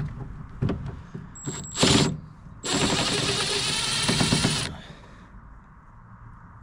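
Power driver with a Torx bit undoing the small bolt at the corner of a BMW E46 door handle: a short burst, then a rapid rattling run of about two seconds with a high whine, stopping sharply. A few light clicks come before it.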